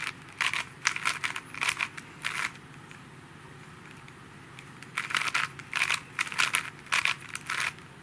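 Plastic 4x4 Rubik's cube being turned by hand: quick clacking of its layers in two bursts of turns, with a pause of about two seconds between them.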